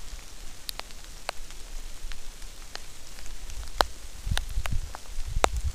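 Steady rain: a soft even hiss with scattered sharp ticks of raindrops landing close by, and low bumps of handling noise in the second half.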